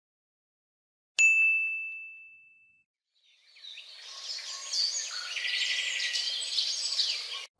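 A single ding, one clear bell-like tone struck about a second in and left to ring out over a second and a half. Then, from about halfway, birdsong ambience: many high chirps and trills over a soft outdoor hiss, cut off abruptly just before the end.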